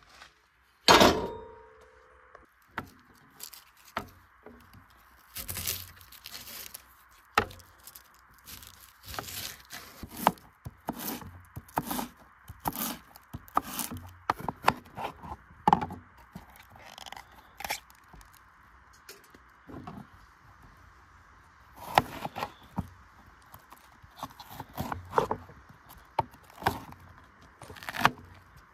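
Knife knocking and scraping on a wooden cutting board in irregular strokes, with a loud knock about a second in.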